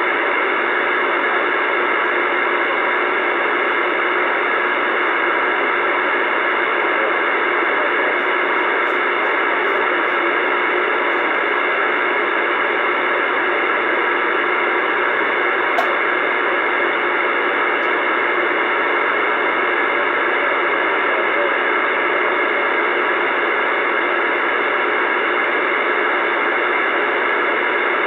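Steady hiss of band static from a Uniden Bearcat CB radio's speaker on AM channel 28 (27.285 MHz), with no station talking through it. There is a single small click about sixteen seconds in.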